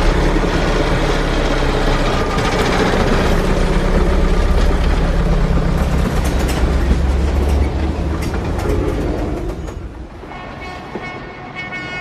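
A heavy vehicle running with a loud, steady low drone and clatter, which falls away about ten seconds in, leaving a quieter, steady hum.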